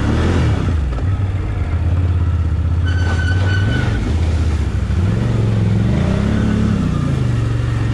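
Can-Am Outlander ATV engine revving up and down as the quad crawls through a water-filled mud hole, with water splashing around the wheels. A brief high squeal comes about three seconds in.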